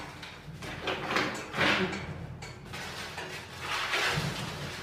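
A few short scraping sounds, unevenly spaced: a utensil worked against a wok on a gas stove.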